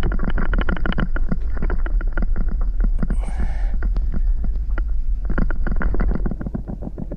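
Muffled underwater sound picked up by a GoPro in its waterproof housing as it is moved along a hull on a pole: a steady low rumble of water with dense crackling clicks. A brief hiss comes about three seconds in.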